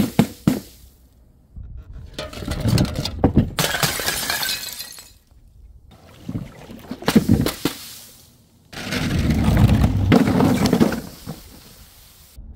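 Glass bottles smashing on a hard floor: several separate shattering crashes with shards clinking, some short and sharp, two of them drawn out for two seconds or more.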